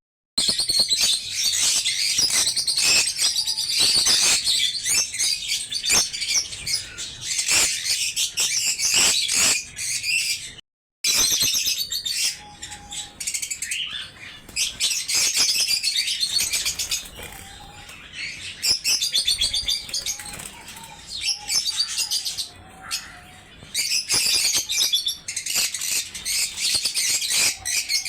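A cage of small pet birds chirping busily and continuously, with wings fluttering, the sound cutting out briefly about eleven seconds in.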